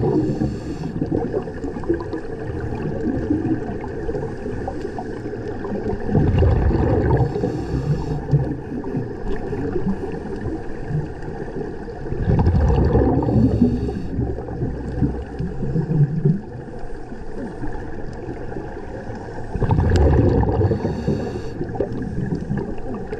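Underwater sound of scuba divers breathing through their regulators: a rush of exhaled bubbles about every six to seven seconds, over a steady underwater rumble and hiss.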